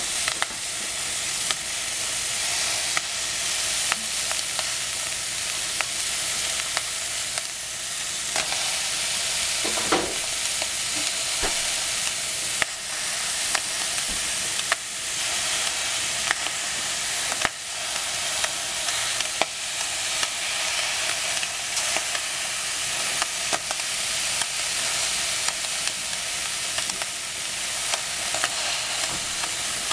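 Steady hiss under frequent light clicks and taps as squash is sliced by hand with a small paring knife and the pieces drop into a stainless steel saucepan, with a slightly heavier knock about ten seconds in.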